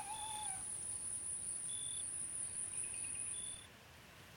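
An insect's high, steady trill, with faint short high chirps repeating beside it. It cuts off about three and a half seconds in. A short falling whistle sounds right at the start.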